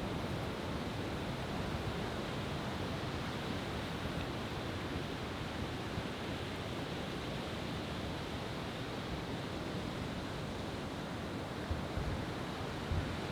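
Steady wash of sea surf breaking on the beach, with a few short low thumps near the end.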